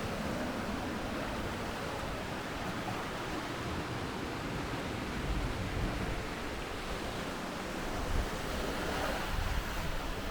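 Sea surf washing onto a beach, a steady rushing wash, with wind buffeting the microphone in low rumbling gusts.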